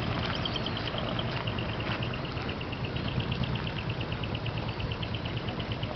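Heavy truck diesel engines running slowly with a steady low rumble, over which a rapid, regular high-pitched chirping repeats about seven times a second.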